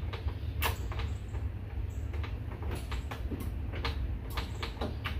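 A GY6 125cc scooter engine being tried for a start without catching: a steady low hum with scattered clicks and knocks. The engine was brought in overfilled with oil and would not start.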